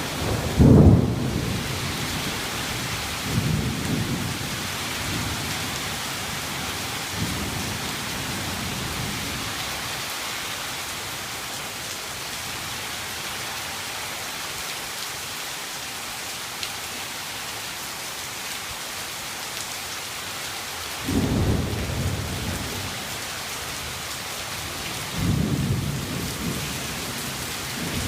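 Heavy rain pouring steadily in a windy storm. Five short, low rumbles break through it, the first the loudest, two more in the first eight seconds and two more near the end.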